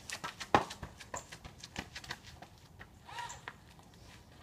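Footsteps of a person running away across a driveway: quick sharp steps that fade as he gets farther off, with a short call about three seconds in.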